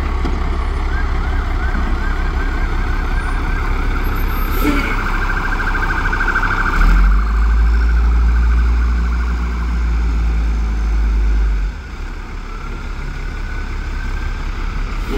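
Peterbilt 320 garbage truck's diesel engine rumbling at idle, then revving up as the truck pulls away about seven seconds in, and easing back about twelve seconds in. In the first half, a siren yelps and then wails over the engine.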